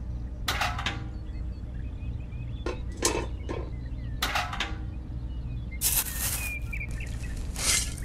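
Small tin toy buckets clinking and knocking as they are handled and set down, with a couple of short scraping sounds of sand and gravel in them about six seconds in and near the end, over a steady low hum.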